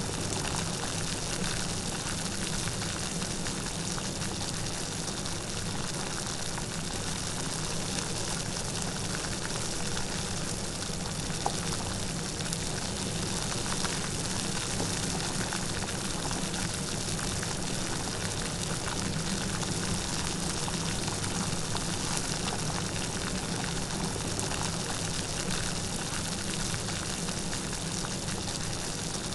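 Steady light rain falling, a continuous even patter of many small drops.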